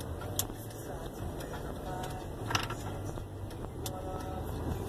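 Car driving slowly, a steady low engine and road rumble heard from inside the cabin, with a few sharp clicks, the loudest about halfway through.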